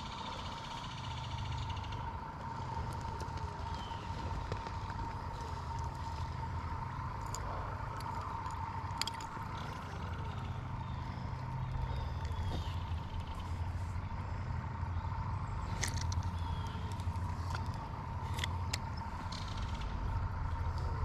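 Steady low rumble and a constant high hum, with a few sharp clicks from handling a spinning rod and reel and faint bird chirps.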